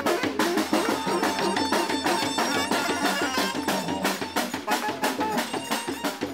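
Live strolling band playing an upbeat tune: a carried drum and cymbals keep a fast, even beat under a strummed acoustic guitar and brass.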